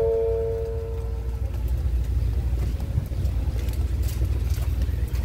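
The last notes of a descending station public-address chime ring out and fade over the first second and a half, over a steady low rumble.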